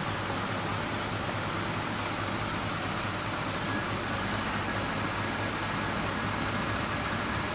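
A 24V 250W brushless geared front hub motor running up to its full speed of 12.2 mph: a steady whirring noise, with a thin high whine joining about halfway in.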